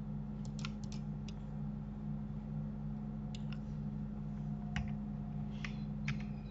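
Scattered computer keyboard and mouse clicks, a quick cluster in the first second and a half and then single clicks every second or so, over a steady low electrical hum.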